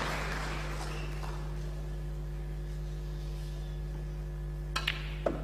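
Steady low hum of a quiet snooker arena, then near the end a few sharp clicks of snooker balls as a shot is played: the cue striking the cue ball and balls colliding.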